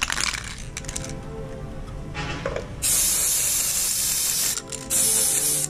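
Aerosol spray paint can hissing in spurts: a brief spray at the very start, then a long spray of nearly two seconds about three seconds in, and a shorter one soon after.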